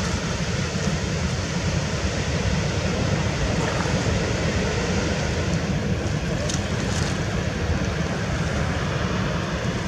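Steady wind buffeting the microphone, a fluttering low rumble with an even hiss above it.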